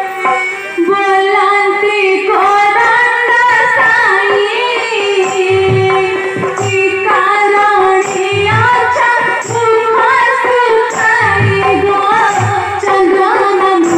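Live song from an Odia Ramanataka folk drama: a high voice sings a winding melody over a steady held drone. About halfway in, hand-drum beats join in repeating groups, with small cymbal clinks keeping time.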